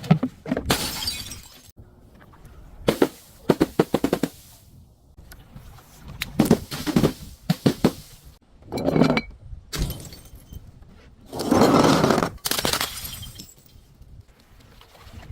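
Glass being smashed and crushed: about five bouts of breaking and crunching, sharp cracks mixed with grinding crunches, the longest and loudest near the end.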